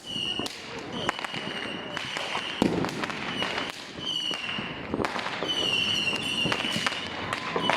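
New Year fireworks: a run of high whistles at one steady pitch, each from a moment to about a second and a half long, over many bangs and crackles. A lower whistle starts near the end.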